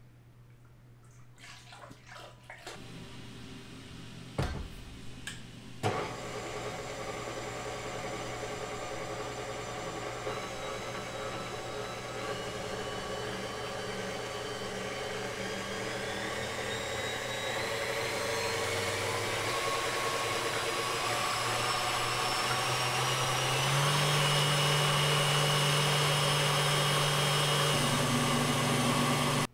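KitchenAid stand mixer running with its wire whisk whipping heavy cream in the steel bowl, an early stage of churning butter. The motor whine climbs slowly in pitch and steps up louder about six seconds before the end. Two sharp clicks come a few seconds in, before the steady run.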